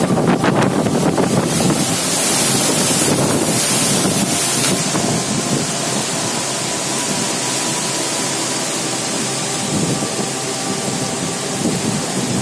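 Cyclone wind gusting through coconut palms and trees with heavy rain, the gusts buffeting the microphone in a loud, uneven rumble under a steady hiss.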